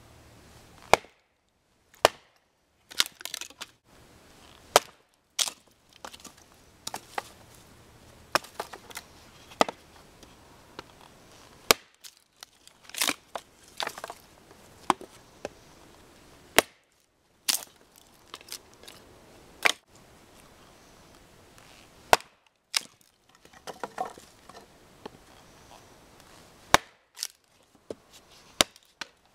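Wetterlings large hunting axe striking and splitting a dry, dead stick against a log: a series of sharp, irregularly spaced wooden knocks, some in quick clusters.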